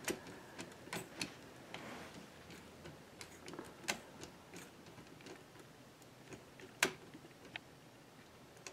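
Screwdriver turning a small screw to fasten a print head onto a 3D printer frame: scattered faint clicks and ticks, with a sharper click near the end.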